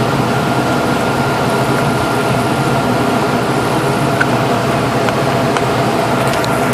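Loud steady mechanical hum with several fixed tones, with a few faint clicks over it about four seconds in and near the end.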